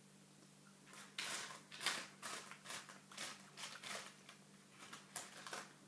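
Fingers rummaging through jelly beans in the plastic tray of a BeanBoozled box: a run of irregular short rattles and clicks, about two or three a second, starting about a second in.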